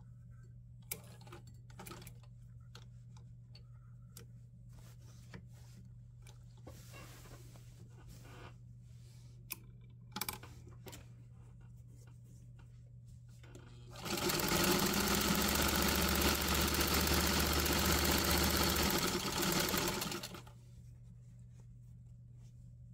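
Electric sewing machine: a few light clicks and taps as it is handled, then the machine runs steadily for about six seconds, stitching a seam through cotton flannel, and stops. A steady low hum lies underneath.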